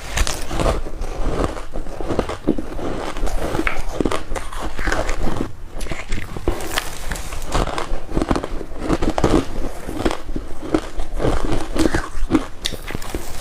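Crushed and shaved ice being bitten close up: a dense run of irregular crunches, one bite after another.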